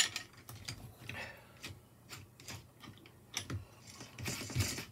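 Small open-end spanner clicking and scraping on a lock nut and the 3D-printed plastic spool assembly as the nut is tightened. A sharp click at the start, scattered light ticks, and a short scraping rustle near the end.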